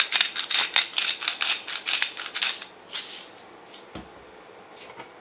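Hand-twisted salt grinder grinding salt crystals: rapid clicking that stops about three seconds in, followed by a soft thump.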